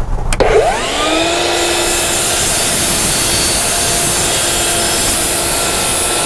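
Electric table saw starting up, its motor whine climbing quickly about half a second in, then running steadily at full speed as it cuts a wooden board.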